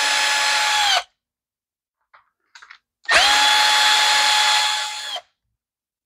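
A small cordless screwdriver's motor whines at a steady pitch as it backs out screws from a string trimmer's carburetor and air-filter housing. It runs twice: once stopping about a second in, then again for about two seconds, easing off at the end. A few light clicks fall between the runs.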